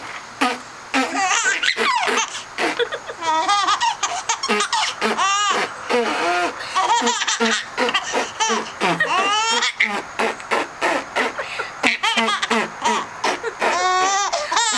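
A three-month-old baby laughing hysterically in quick, high-pitched squealing bursts. Between the bursts come short popping mouth sounds: a sister's fart noises and beatboxing.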